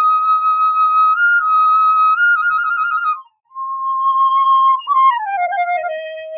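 Solo flute playing an instrumental interlude in a Bengali film song: a held high phrase with small ornaments, a brief break about three seconds in, then a new phrase that steps down in pitch and fades out near the end.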